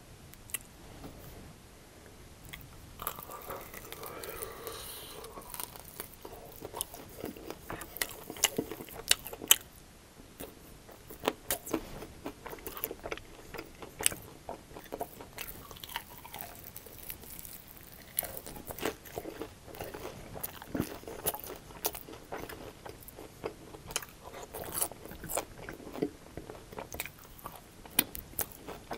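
Close-miked biting and chewing of crunchy breaded fried chicken wings coated in sauce: sharp crackling crunches with wet chewing between them. The loudest crunches come about eight to nine seconds in.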